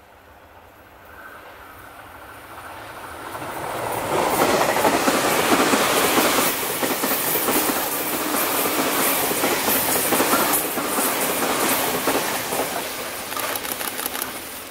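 E351 series limited-express electric train passing at speed, its wheels clattering rhythmically over the rail joints. It swells over the first few seconds, stays loud for about eight seconds, and fades near the end as it moves away.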